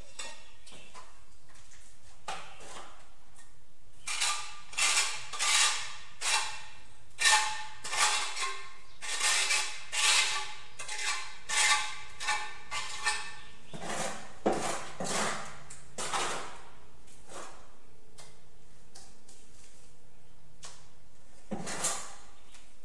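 Steel tiling trowel scraping mortar, a run of short strokes at about one and a half a second that stops, then one more stroke near the end.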